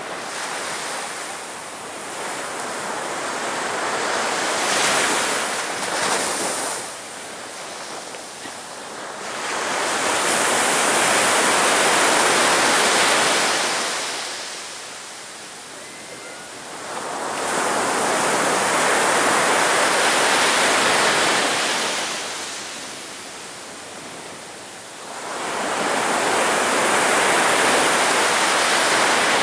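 Sea waves breaking on a beach. Four breakers swell up over a few seconds and wash away, about eight seconds apart.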